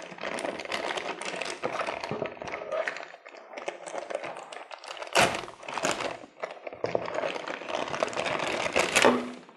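Clear plastic bag crinkling and rustling as a bagged video cable is handled and pulled out of it inside a cardboard box, with two sharper cracks about five seconds in and near the end.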